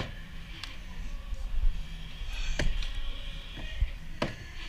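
Three sharp knocks, spaced about a second and a half apart, from wood framing being handled and braced, over a steady low rumble.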